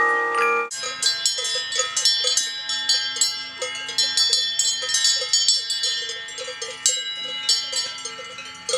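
The last notes of a music box stop under a second in. Then many cowbells ring and clank at once in an irregular jumble of overlapping strikes.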